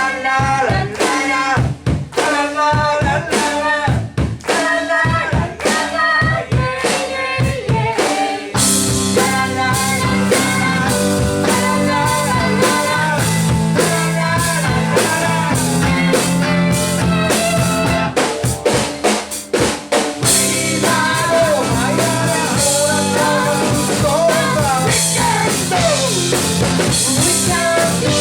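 Live rock band of electric guitar, drums and keyboard playing an instrumental passage. For the first eight seconds or so the band strikes short, punched chords together on the drum hits with gaps between them, then the full band comes in continuously under a lead line that bends in pitch.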